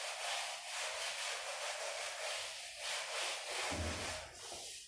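A hand-held whiteboard duster rubbed briskly back and forth across a whiteboard, wiping off marker writing in quick repeated strokes. It stops just before the end.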